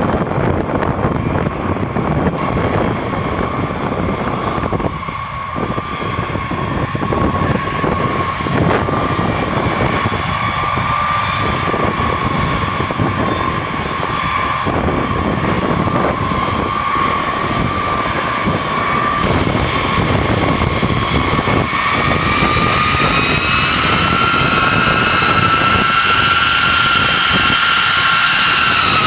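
B-52 bombers' jet engines whining steadily as the aircraft taxi, over a heavy rumble. The whine rises in pitch over the last several seconds as the nearest bomber comes close.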